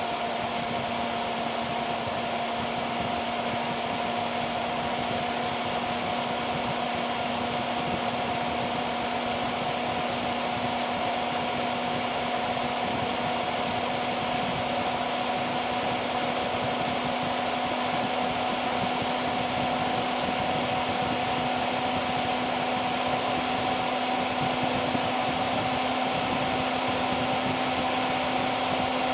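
Dell Dimension E521's large BTX CPU cooling fan running fast under full CPU load: a loud, steady rush of air with a humming whine. Its pitch creeps slowly upward as the fan speeds up to cool the CPU.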